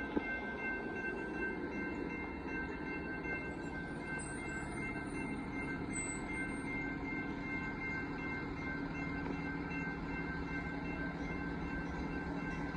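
Railroad grade-crossing warning bell ringing steadily while the crossing is activated for an approaching train, over a low steady rumble; a low hum grows from about eight seconds in.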